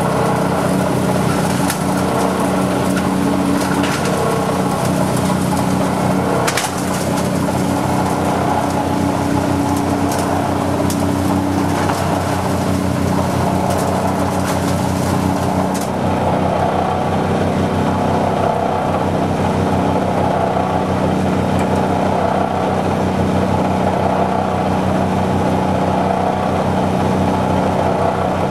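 Tractor engine and the belt-driven hammer mill it powers running steadily, pulverizing dry clay into powder. Scattered sharp ticks come through during the first half.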